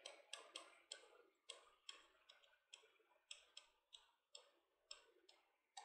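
Faint, irregular clicks and light scratching of chalk writing on a blackboard, about two or three taps a second as the letters are formed.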